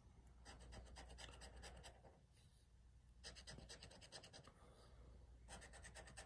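Faint rapid scraping of a scratcher tool across the coating of a lottery scratch-off ticket, in three short bouts with brief pauses between.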